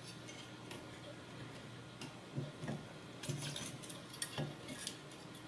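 Light clicks and clinks of small hard parts being handled, over a faint steady hum. Most of them come between about two and five seconds in.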